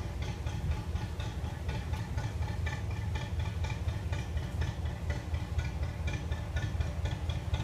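National 2DM two-cylinder diesel engine of a narrowboat running at low revs, a steady deep throb with an even, regular knocking beat several times a second.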